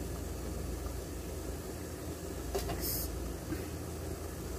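Water boiling steadily in a rice cooker under an aluminium steamer tray, a steady low sound. About two and a half seconds in, a light knock as a plastic puto mold is set down on the perforated tray.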